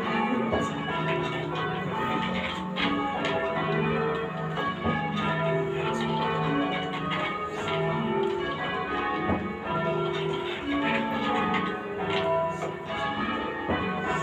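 Church tower bells rung full-circle in change ringing: a steady, even succession of bell strikes, each tone ringing on under the next.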